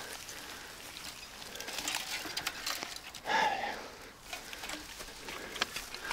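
Footsteps and rustling of people walking along a footpath, with one louder short sound about three and a half seconds in.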